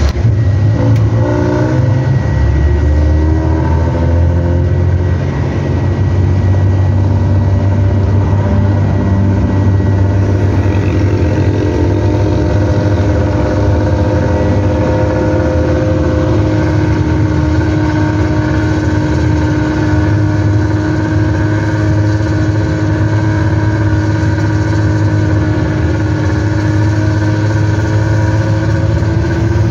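Nissan Diesel CB87L bus's diesel engine and 'ngorok' (snoring) exhaust, heard from the rear seat inside the cabin, giving a loud, deep drone. The engine note climbs over the first few seconds, then settles into a steady drone.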